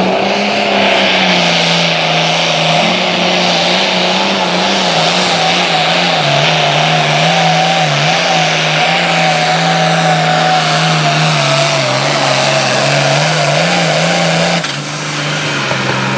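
Case IH hot farm tractor's diesel engine running flat out under full load as it pulls the sled, holding a steady, slightly wavering pitch. Near the end it drops off as the throttle is let off, and a high whine falls away.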